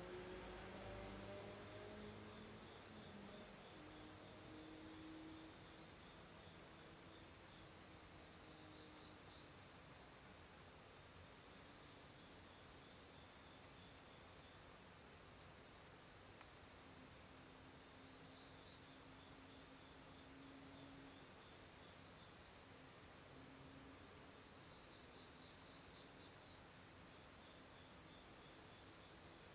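Faint night chorus of crickets: a steady high trill with pulsing chirps running through it.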